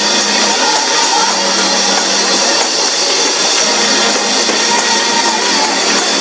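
Loud, heavily distorted live church worship music with the congregation, blurred into a dense harsh wash of sound.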